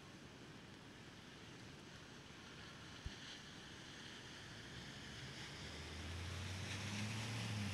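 Rainy-day street ambience: a steady hiss of rain and wet traffic, with one short click about three seconds in. From about six seconds in, a vehicle's low engine hum comes in and grows louder.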